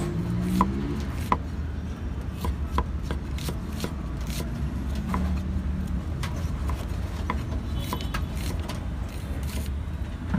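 Steel cleaver slicing onions on a round wooden chopping block: sharp knocks of the blade hitting the wood, unevenly spaced at roughly one to two a second, over a low steady rumble.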